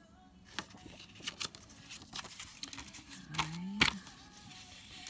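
Paper album booklet being handled and its pages turned, with paper rustling and a scatter of light clicks and taps, the loudest about four seconds in.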